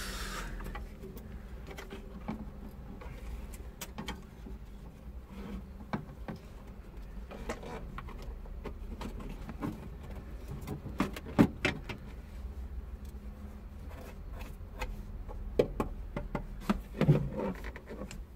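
Handling noises inside a van cab: scattered short clicks and knocks with some rubbing and rustling of fabric, loudest in a few sharp knocks a little past the middle and near the end, over a low steady rumble.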